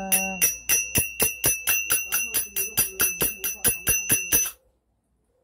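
A pair of small brass hand cymbals (manjira) struck together in a steady rhythm, about four or five clashes a second. Each clash rings with a high, bright tone. They stop abruptly near the end.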